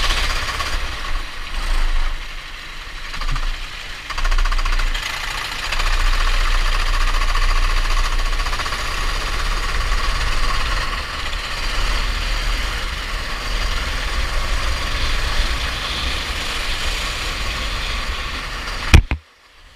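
Go-kart engine running at speed. It eases off briefly a few seconds in and then picks up again. Near the end there is one sharp bang, and then the sound cuts out abruptly.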